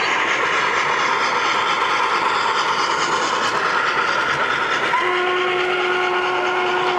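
O gauge three-rail model train rolling along the layout over a steady hall rumble; about five seconds in, a model locomotive's sound system blows one steady steam whistle that is still sounding at the end.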